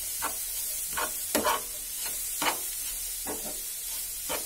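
A spoon stirring and scraping grated coconut and sugar around a hot frying pan with ghee, in irregular strokes about once a second, over a steady faint sizzle.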